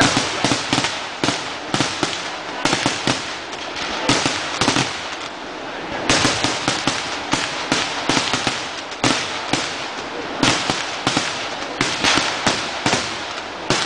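Vedikkettu, a Kerala temple-festival fireworks display: a continuous barrage of ground-fired firecrackers, several sharp bangs a second over a steady crackle. It eases briefly about five seconds in, then picks up again.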